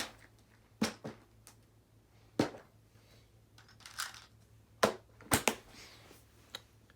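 Small plastic parts being handled: a box of wire nuts (wire caps) opened and rummaged through, giving a string of separate sharp clicks and knocks with a short rustle about four seconds in.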